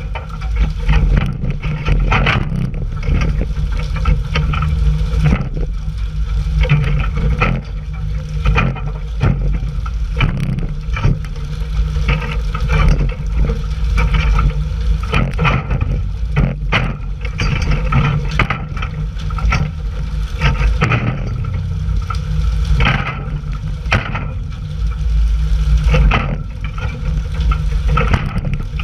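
Fishing boat's engine running under a constant rush of water spray and splashing, with frequent irregular knocks and slaps as tuna are jerked out of the water on poles and land on the deck.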